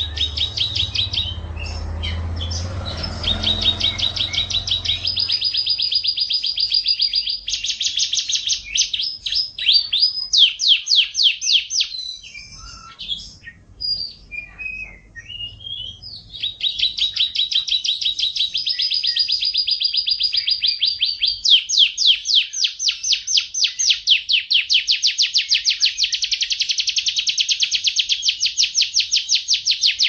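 Canary singing: long trills of fast repeated notes that change speed from one phrase to the next, broken for a few seconds midway by scattered single calls before the trills resume.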